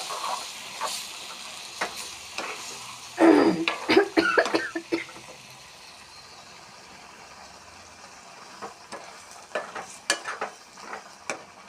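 Egg and potato curry sizzling in a pan just after water is added for the gravy, with a spatula stirring and scraping against the pan. A cluster of louder clattering knocks comes about three to five seconds in, then it settles to a quieter sizzle with occasional light taps.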